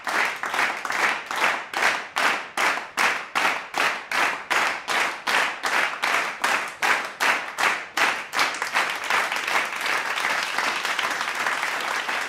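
A crowd clapping in unison, about three claps a second, breaking into general applause about eight seconds in.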